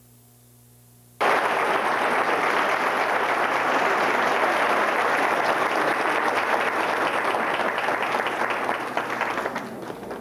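After about a second of faint hum, audience applause cuts in suddenly and goes on steadily, thinning out near the end.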